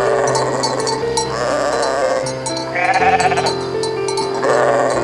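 About four bleats in a row, each with a quavering tremble, over background music with steady held notes.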